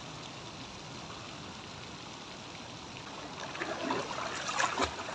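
Swimming-pool water lapping and splashing as a swimmer moves in it close to the phone, over a steady hiss. The splashes pick up about three and a half seconds in.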